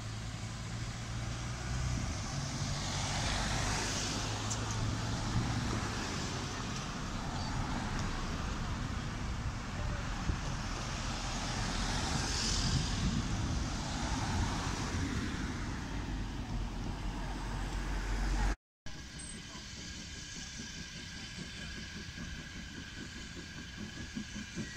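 Cars driving past on a road, the tyre and engine noise swelling and fading twice as each car passes. After a sudden cut near the end, quieter traffic background.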